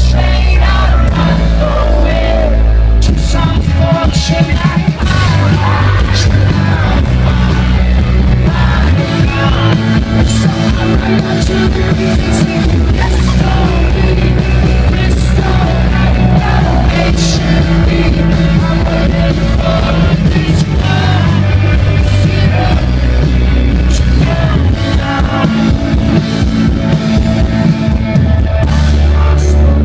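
Rock band playing live and loud, with singing over the band.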